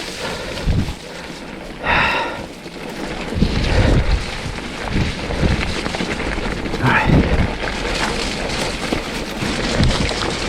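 Heavy rain on and around the camera, a steady hiss, with irregular low knocks and thumps. There are two short voice-like sounds, about two seconds in and again about seven seconds in.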